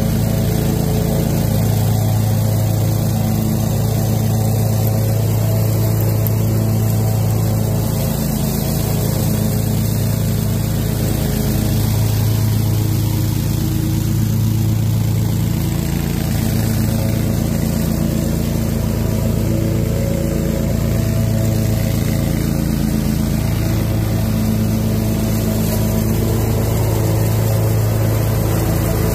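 Toro Proline 60-inch mower's engine running steadily, driving its blower attachment as it picks up leaves into the collection bucket.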